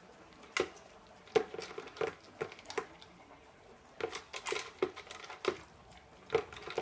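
A German Shepherd eating dry kibble from a plastic Company of Animals Green slow feeder: irregular short crunches and clicks as she picks food from between the plastic spikes, with a short pause about halfway through.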